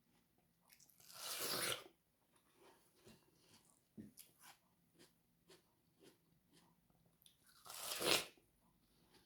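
Two crunchy bites into fresh watermelon, about a second in and again near the end, with soft wet chewing clicks between them.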